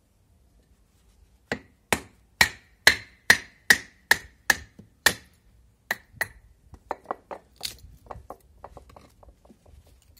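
Batoning: a wooden stick striking the spine of a Ganzo 7453 folding knife to split a wet stick down to its dry core. About nine sharp, evenly spaced knocks with a slight metallic ring come first, then lighter, quicker knocks that fade.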